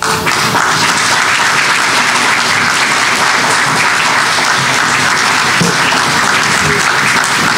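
Congregation applauding in a church sanctuary: dense, steady clapping that breaks out all at once as the choir's closing song ends.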